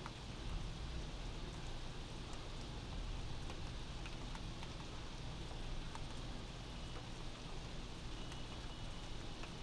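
Steady rain heard from inside a house, with a continuous hiss and scattered individual drops ticking on a surface, over a low rumble.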